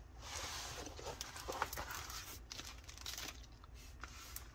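Plastic crinkling and rustling with scattered small clicks as a diamond painting kit and its plastic wrapping are handled, busiest in the first couple of seconds.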